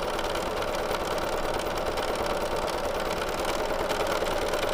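Sewing machine running steadily at speed, its needle stitching through a quilt sandwich in free-motion quilting with a ruler foot and the feed dogs lowered.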